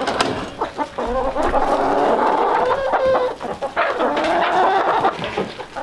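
A flock of laying hens clucking all together, many calls overlapping without a break: noisy chickens.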